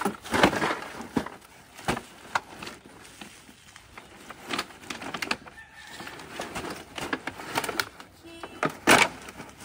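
Irregular knocks and clatter, with scraps of junk being handled, the loudest knocks about half a second in and near the end.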